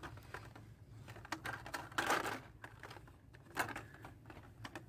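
Hot Wheels blister-carded cars being pushed and flipped through on metal store pegs: scattered light clicks and plastic-and-cardboard rustling, with a louder rustle about two seconds in and another near three and a half seconds.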